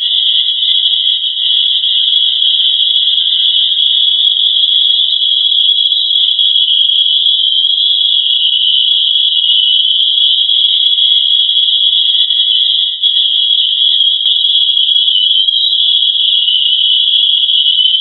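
A loud, steady, high-pitched shimmering chirr with no break, like many birds chirping at once. It is the recording presented as NASA's sound of planet Earth.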